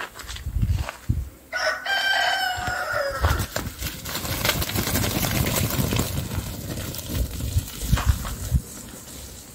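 A rooster crows once, one call of about a second and a half that sags in pitch at the end. Then comes a few seconds of rustling and scattered footfalls as the flock of sheep trots past.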